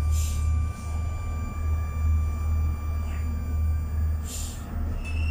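Interior of a Moscow Metro 81-775/776/777 car standing at a station: a steady low hum from the train's onboard equipment with thin steady tones above it. A short hiss comes about four seconds in, and a faint whine starts near the end.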